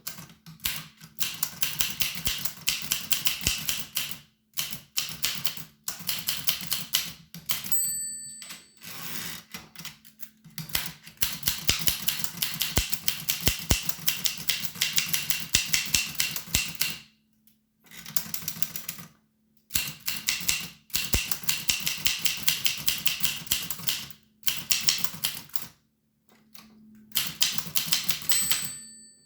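1895 Williams No. 1 typewriter being typed on: quick runs of key strikes broken by short pauses. Its line-end bell rings twice, about eight seconds in and again near the end.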